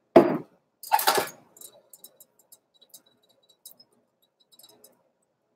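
A sharp knock, then a short scraping clatter about a second in, as a cast-iron skillet and oil bottle are handled on an electric coil stove. After that come sparse faint ticks and crackles from avocado oil just poured into the smoking-hot skillet and swirled to coat the bottom.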